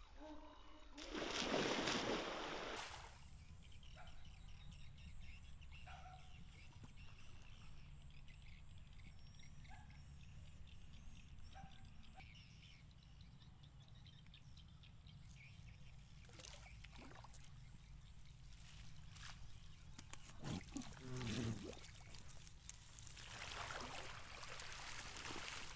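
A cast net hits river water with a splash about a second in. Quieter water sounds follow, then splashing and sloshing near the end as the net, with a large arapaima caught in it, is dragged to the bank.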